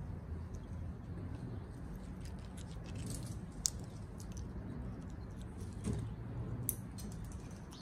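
Amazon parrots' beaks clicking and crunching as they eat from a coconut-shell cup: scattered sharp clicks, the loudest about three and a half seconds in, over a steady low rumble.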